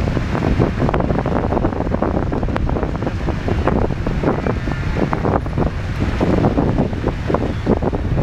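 Wind buffeting the microphone over the sound of the Mara River's water, a steady rough rumble with short crackles all through.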